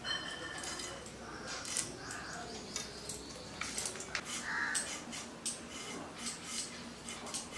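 Irregular light clicks and clinks of kitchen utensils being handled during food preparation.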